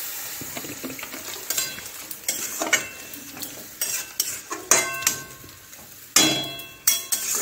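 A spatula scraping and knocking around a kadai as a curry is stirred, in repeated strokes, with the food sizzling in the pan beneath. A louder scrape comes near the end.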